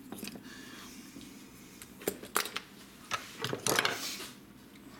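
Small metal and plastic chainsaw parts clicking and clattering on a wooden workbench as they are handled, with a few separate clicks about two seconds in and a louder run of clatter in the second half.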